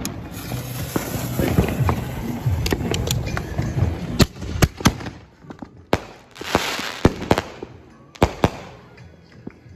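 Consumer firework mortar shells, lit in pairs from tubes in a launch rack, going off: a string of sharp bangs from lifting and bursting shells starts a few seconds in, with a spell of hissing sparks partway through.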